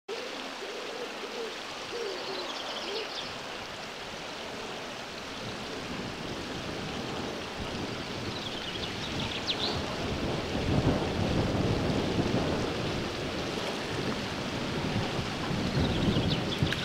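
Outdoor ambience of a steady rushing noise that grows louder and rumbles low from about ten seconds in. Over it come three short runs of high-pitched peeping from mallard ducklings, and a low wavering call in the first few seconds.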